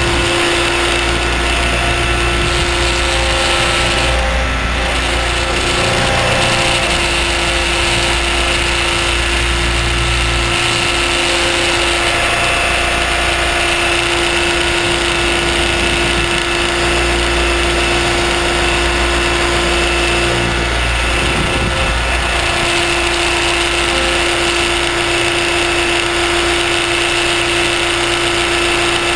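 Align T-Rex 600ESP electric RC helicopter in flight, heard on board: a steady whine from the motor and drive gears over the whir of the rotors. The pitch wavers briefly about two-thirds of the way through as the load changes.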